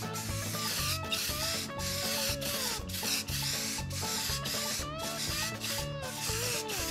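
Background music with a melody and steady bass line, over a rough rubbing hiss that comes in strokes with short breaks.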